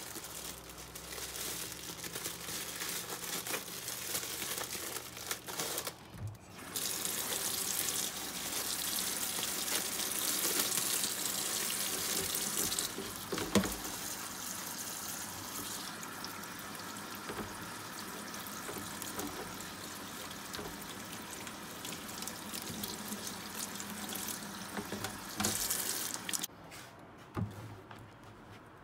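Water running from a kitchen tap into a sink. It stops briefly about six seconds in, runs harder for the next several seconds, and stops near the end. There is one sharp knock about halfway through.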